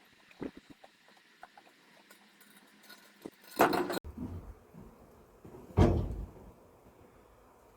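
A few scattered knocks and clicks, with a short rustling burst just before four seconds in and one loud, deep thump near six seconds in.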